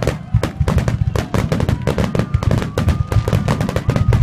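Fireworks going off in a dense barrage: many sharp bangs and crackles a second over a continuous low rumble, with a faint held whistle-like tone running through it.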